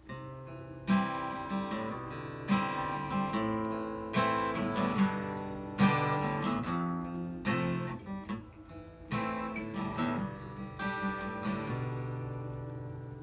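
Acoustic guitar strumming chords, each stroke left to ring, as the instrumental introduction to a song before the singing comes in.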